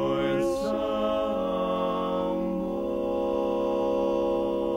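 Barbershop quartet singing a cappella, four men's voices holding a long sustained chord whose harmony shifts about a second in.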